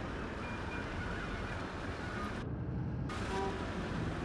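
Steady rumble of vehicle engines and traffic noise from a convoy of military trucks, with its high end dropping out briefly about two and a half seconds in.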